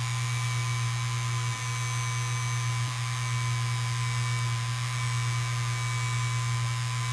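Electric paint sprayer running steadily: a strong low motor hum with an even hiss of spray over it.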